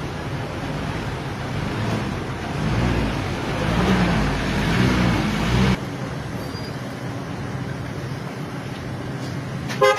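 Motor vehicle engine and traffic noise, swelling louder from about three seconds in and dropping off suddenly a little before six seconds.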